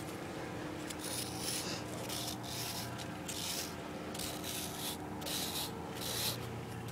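A small hand-held metal object scratching letters into a soft sandstone cliff face: a run of short, irregular scraping strokes, about one to two a second.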